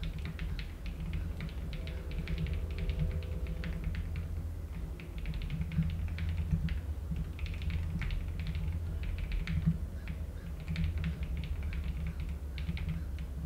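Computer keyboard typing: irregular runs of keystrokes with short pauses between them.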